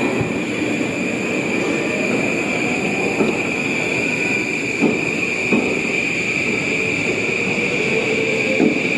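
E235 series electric train pulling away from a platform: a faint motor tone rises slowly in pitch as it accelerates, with a few clunks from the wheels over rail joints, under a steady high-pitched tone.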